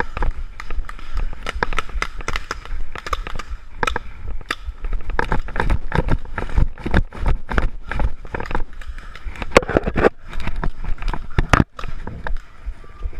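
Paintball markers firing: irregular sharp pops, several a second at times, over a low rumble of wind and handling on a body-worn action camera.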